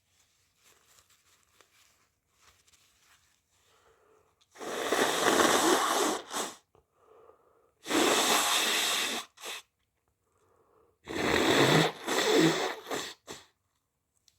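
A person sneezing three times in a row, wet sneezes, each one preceded by a short faint breath in.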